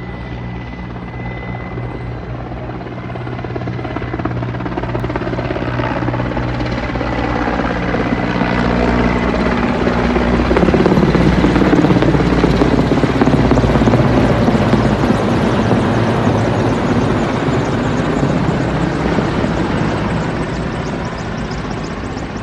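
Helicopter flying past low overhead: the rotor and engine noise builds to a peak about halfway through, then fades as it moves away.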